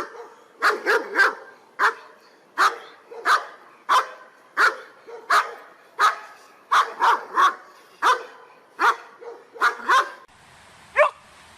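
A dog barking over and over in sharp single and double barks, roughly one every two-thirds of a second. About ten seconds in, the background changes to a steady hiss and a single bark comes near the end.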